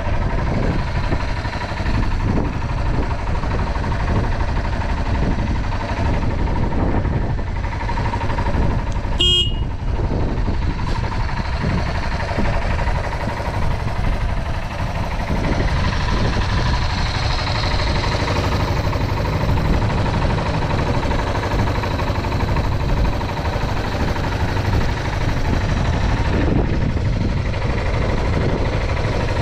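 Yamaha TW225's air-cooled single-cylinder four-stroke engine idling steadily, with no abnormal noise. About nine seconds in there is one very short high beep.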